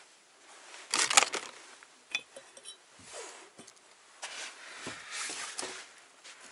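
A sharp clatter of debris about a second in, then a brief ringing glass clink, followed by scattered knocks and crunching steps on a littered floor.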